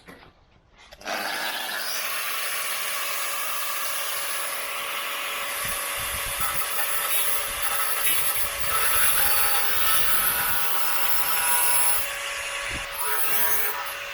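A power tool starts about a second in and runs steadily, grinding on car-body sheet steel.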